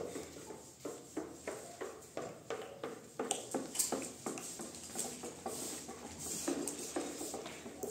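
A run of short, soft knocks at about three a second, going on unbroken.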